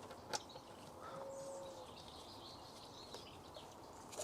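Quiet background with faint birdsong, and a single sharp click about a third of a second in.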